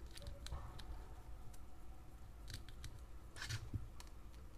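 Faint handling sounds: a few short clicks and rustles from hands working a rubber RC tyre back from its plastic wheel rim while squeezing a superglue bottle into the bead. The clearest clicks come about two and a half and three and a half seconds in.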